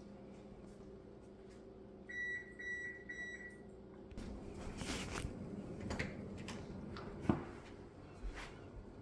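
An electronic appliance beeper sounds three short, even, high beeps about two seconds in. It is followed by a few seconds of footsteps and handling noise, with a sharp knock about seven seconds in.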